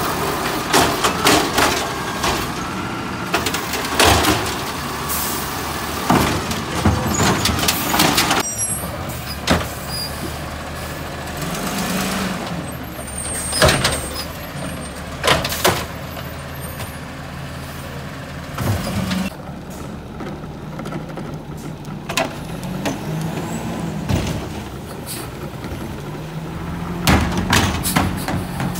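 Natural-gas automated side-loader garbage truck running while its hydraulic arm grabs, lifts and dumps wheeled trash carts: a whine that rises and falls several times as the arm works, over the engine, with repeated sharp bangs of the plastic carts against the hopper and the ground.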